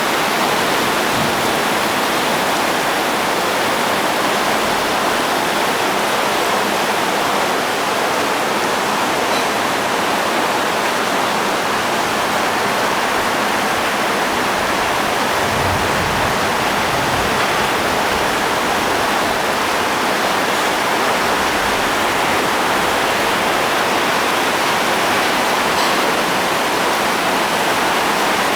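Heavy rain pouring down in a storm, a loud steady hiss, with a few brief low rumbles about halfway through.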